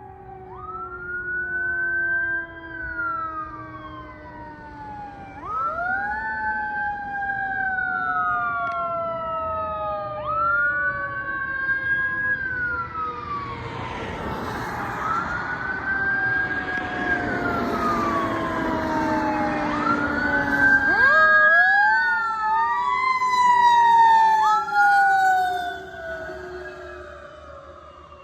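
Fire engine sirens sounding together: an electronic wail rising quickly and falling slowly in cycles of about five seconds, over a lower Federal Q2B mechanical siren tone that winds up and coasts down. The sound grows louder toward the middle and end as the engine passes.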